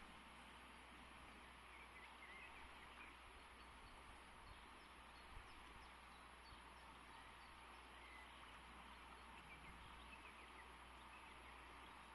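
Faint, steady rush of a fast-flowing river, with scattered faint bird chirps now and then.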